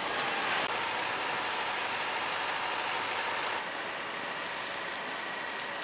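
Tracked excavator's diesel engine running steadily as it works soil.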